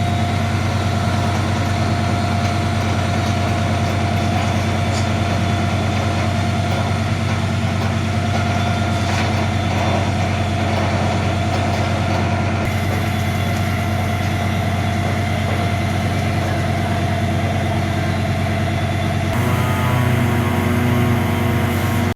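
Heavy diesel engine running steadily with a deep, even drone. About nineteen seconds in its note shifts and it gets a little louder.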